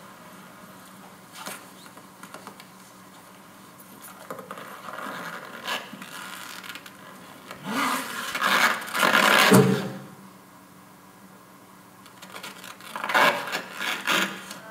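Scraping and scuffling noises of a man forcing his way into a large pipe, from an advert soundtrack played over a room's speakers. The noises come in scattered scuffs, loudest in a run about eight to ten seconds in, with another cluster near the end.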